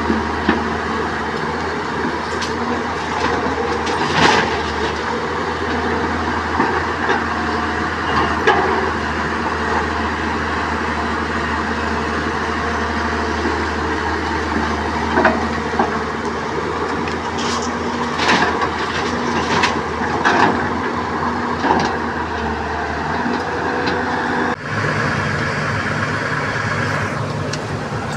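Hyundai crawler excavator's diesel engine running steadily as it digs and loads a dump truck, with scattered clanks and knocks of the bucket and rock. About three and a half seconds before the end the sound cuts abruptly to a steadier engine hum heard from inside the excavator's cab.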